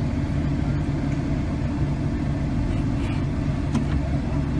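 Off-road 4x4's engine running at steady low revs, heard from inside the cab, with a couple of faint clicks about three seconds in.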